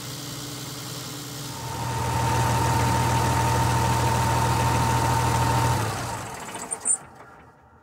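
John Deere 6068T 6.8-litre six-cylinder turbo diesel idling steadily. About one and a half seconds in it becomes louder, with a steady high whine over it. It stops about six seconds in, followed by a couple of sharp clicks.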